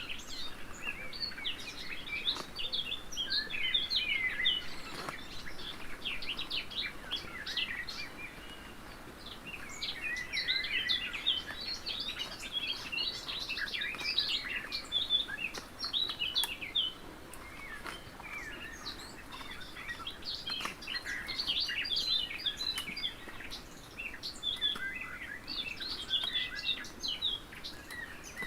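Wild songbirds singing in repeated bouts of quick, twittering notes, with short lulls between bouts.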